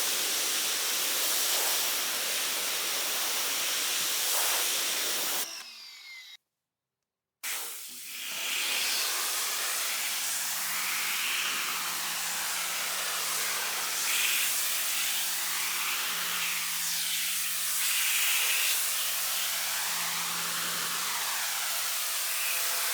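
Sun Joe SPX3000-QW2 electric pressure washer spraying: a steady hiss of the water jet. It drops away and goes silent about six seconds in, then resumes a second later with the pump motor's steady hum underneath.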